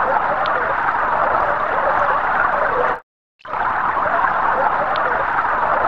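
Computer-synthesized sound of water pouring into a glass tank, generated from simulated bubble oscillations: a steady splashing pour that cuts off about three seconds in. After a short break the same pour plays again, this time with bubble frequency extension added.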